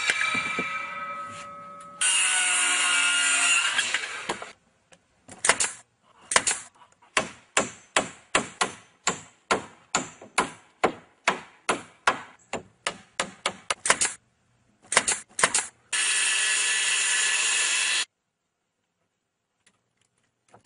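A handheld circular saw cuts through a wooden board, spinning down and then cutting again, followed by a hammer driving nails into the timber at about two blows a second. Near the end a power tool runs steadily for about two seconds, then the sound stops.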